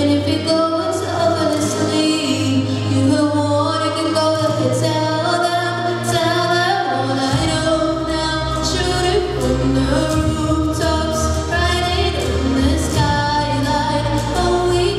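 Solo female pop vocal sung into a handheld microphone over instrumental accompaniment; a deep bass line comes in about seven seconds in.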